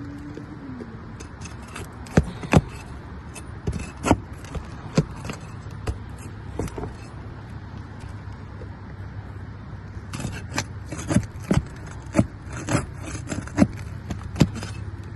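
Irregular sharp metal clicks and taps as old roofing nails are worked loose and pulled from under asphalt shingles, with a cluster a few seconds in and a busier run in the last few seconds.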